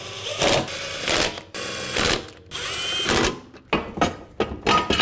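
Cordless impact wrench hammering lug nuts snug on a car wheel in three runs of about a second each, with a high whine. Near the end, a few sharp metal clanks from a steel jack stand being handled.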